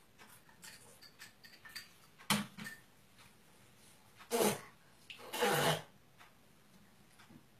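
Short wordless vocal sounds from a person: a brief one about two seconds in, then two louder ones, the second lasting about half a second.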